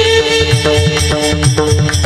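Marathi kirtan music: a fast pattern of pakhavaj drum strokes under steady held instrumental tones.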